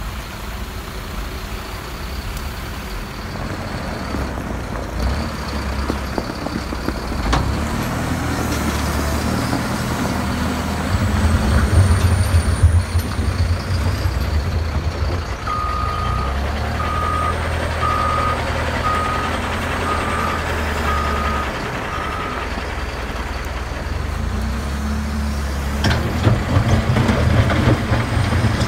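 Heavy truck engine running with a steady low rumble, growing louder about a third of the way in and again near the end. Midway a reversing alarm beeps about once a second, seven times.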